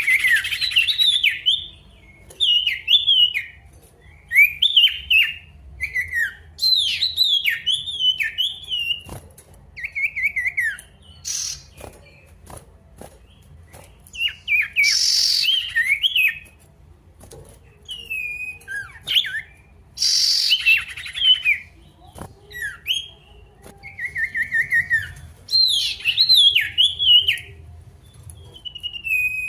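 Male sirtu songbird singing in energetic bursts: short, quick whistled and chirping phrases repeated about every second or two, with a few brief hissy bursts mixed in. This is the 'gacor' calling used as a lure to provoke a quiet sirtu into singing.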